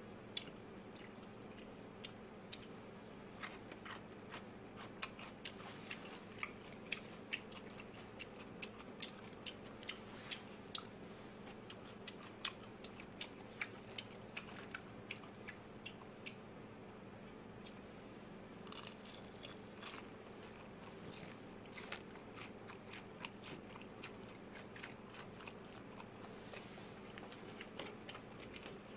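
A person biting and chewing crisp food, fried chicken and pickled radish, close to the microphone: irregular small crunches throughout, coming thicker after about two thirds of the way in.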